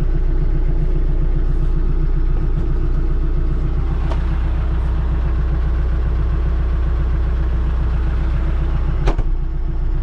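TYM T474 tractor's diesel engine running steadily, heard from inside the cab as a low, even drone. A single sharp knock comes about nine seconds in.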